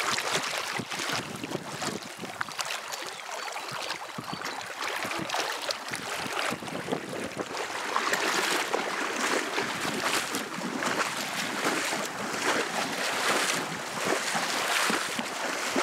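Water splashing and sloshing as a horse wades through deep water, in irregular surges that grow louder about halfway through.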